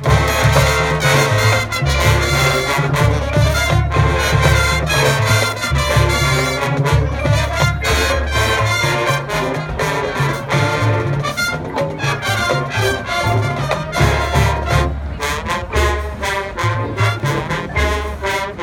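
High school marching band playing, with trumpets and trombones carrying the tune over a steady beat of drums and a heavy low bass.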